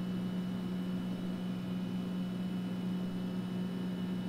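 Steady low electrical hum with a faint high whine above it, unchanging throughout.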